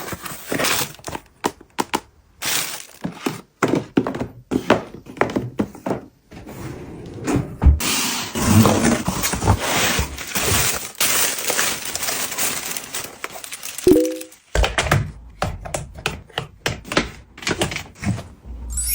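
Unboxing handling sounds: a run of taps and thunks as packaging and items are picked up and set down, with a stretch of crinkling wrapping in the middle.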